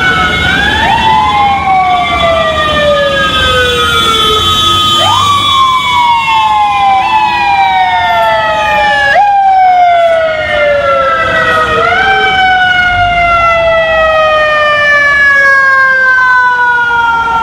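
Fire truck sirens, more than one at once, each rising sharply in pitch and then winding slowly down, pushed back up every few seconds so the glides overlap.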